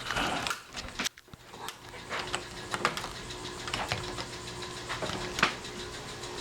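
Irregular clicks and small rattles of Kwikset Kevo door lock parts being handled and fitted together on the door, with sharper clicks about one second in and again near five and a half seconds.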